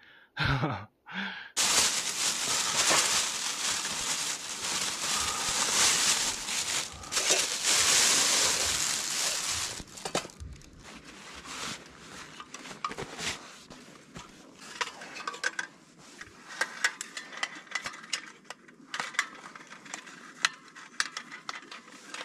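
A steady rushing hiss for the first several seconds, then a run of light metallic clicks and clinks as a small folding, perforated-metal wood-burning camp stove is handled and fitted together.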